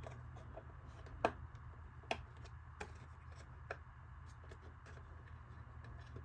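Scattered light clicks and taps of small plastic parts being handled as a tabbed windshield wiper is pushed into a plastic RC hard body, four or five distinct clicks spread over a few seconds, over a steady low hum.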